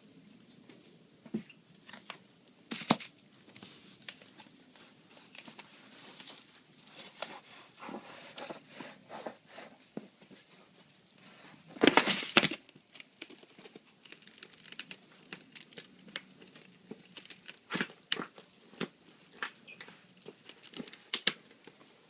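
Packing materials crinkling and rustling as they are handled and pawed at, in scattered short bursts, with one loud ripping sound about halfway through.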